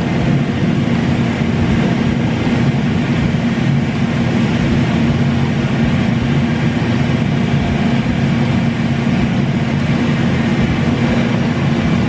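Steady loud mechanical drone with a low hum, unchanging throughout.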